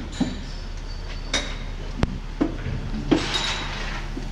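Scattered metal clinks and knocks from U-bolts and tools being fitted around a truck's leaf spring and axle, one sharp click about two seconds in, over a steady low shop hum. A brief hiss comes a little after three seconds in.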